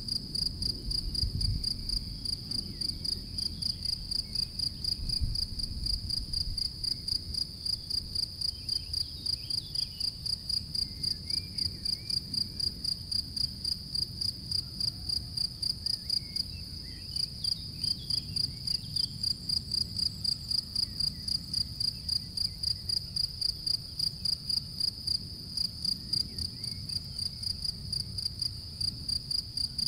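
European field cricket (Gryllus campestris) singing its calling song: a loud, high pitched chirping in a fast, even rhythm of about three chirps a second, with one short break a little past halfway.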